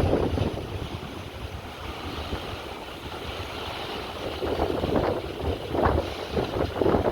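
Wind buffeting the microphone: a rough, uneven rumble that swells and fades in gusts, strong at the start, easing off, then gusting again from about four and a half seconds in.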